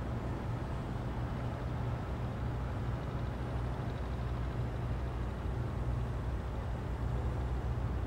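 Diesel engines of a Hitachi tracked excavator and a backhoe loader running steadily as the machines work, a low, even engine hum.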